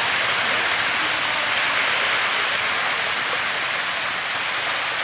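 A dense school of young hybrid magur catfish splashing and churning at the pond surface as they feed, a steady, even hiss of countless small splashes.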